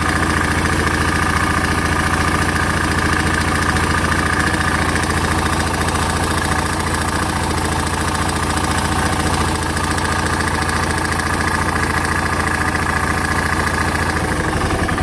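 Suzuki S40 Boulevard's 650 cc single-cylinder engine idling with a steady, even knock, which the owner takes for piston slap at under 4,000 miles.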